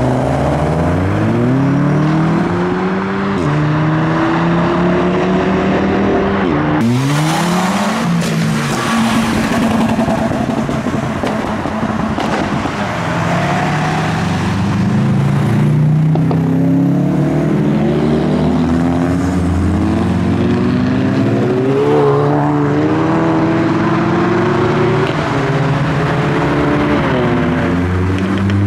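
Modified cars accelerating hard as they leave, engines revving up in several rising pulls, each broken off by a drop in pitch at a gear change. A short burst of noise cuts in about seven seconds in.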